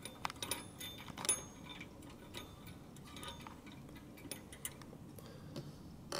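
Faint, irregular small metallic clicks and scrapes as fingers unscrew the little nut holding a clock's brass bell, busier in the first two seconds, with a sharper click at the end.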